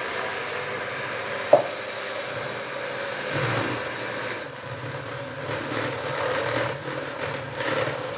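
Electric hand mixer running steadily, its twin beaters churning thick cake batter in a stainless steel bowl. A single sharp tap about a second and a half in, and the churning grows rougher and more uneven from about three seconds on.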